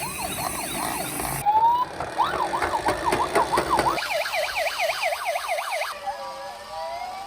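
Electronic sirens of toy police-car and ambulance minicars. A fast yelping wail goes up and down about three times a second and changes abruptly twice. Near the end a slower siren rises in one long sweep.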